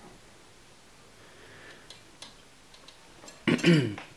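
Faint, scattered light clicks and ticks as steel wire is clamped in a bench vise, followed by a brief louder sound near the end.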